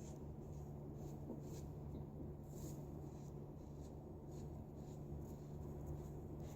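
Faint, irregular short scrapes of a Charcoal Goods Level 2 safety razor cutting stubble through lather, over a low steady hum.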